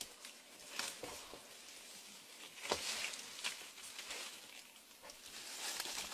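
Asian elephant feeding on leafy brush: leaves rustling and stems crackling and snapping as it pulls them, with the loudest snap a little under three seconds in.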